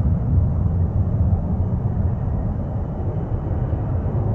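Twin-engine business jet at takeoff power, a steady deep rumble from its rear-mounted turbofans as it lifts off and climbs away, easing slightly toward the end.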